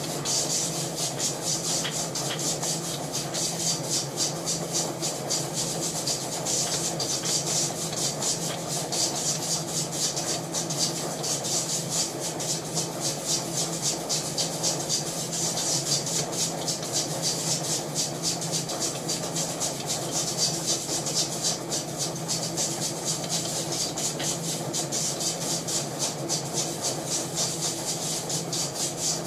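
A machine running with a steady hum and hiss, pulsing evenly about twice a second.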